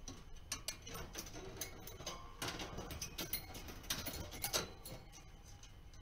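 African grey parrot moving about its wire cage, making irregular light clicks and taps.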